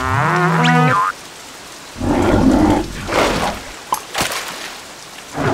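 A cartoon larva yells in a high, wavering gibberish voice for about a second. Then comes a loud rumbling crash, followed by a couple of sharp knocks. Rain patters steadily throughout.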